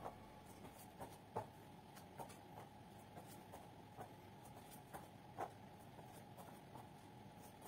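Near silence: faint room tone with a steady low hum and a scattering of light taps and clicks, two of them a little louder, about a second and a half in and again about five and a half seconds in.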